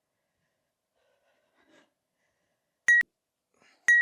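Electronic timer beeping twice, about a second apart near the end, short sharp single-pitched beeps: the countdown that signals the end of a workout interval.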